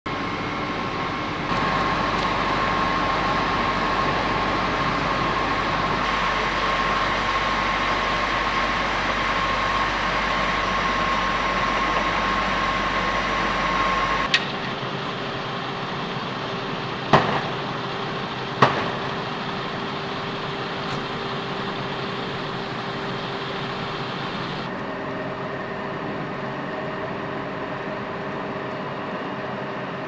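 Fire engines running at the scene, their engines and water pumps giving a steady mechanical hum with a held tone, which changes abruptly about halfway through and again later at cuts. Two sharp clicks come in the middle.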